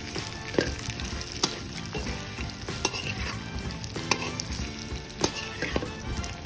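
Metal spatula scraping and clinking against a wok as fish pieces are stir-fried, with a sharp clink every second or so over a steady sizzle.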